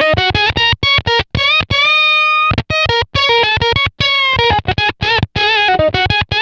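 Electric guitar played through an EarthQuaker Devices Bit Commander octave synth pedal on its old-school octave-up voice, with an Octavia-like sound. It plays a quick run of short, clipped notes that start and stop abruptly, with one longer note held with vibrato about two seconds in.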